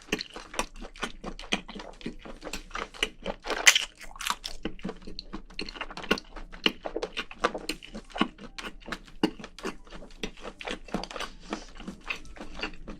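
Close-miked chewing of spicy braised seafood, a dense, irregular run of small wet clicks and crunches.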